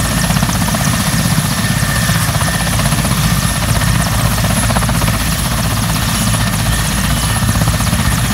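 Mil Mi-17 twin-turbine military helicopter running on the ground with its rotors turning: a steady, loud heavy rotor beat under a constant high turbine whine.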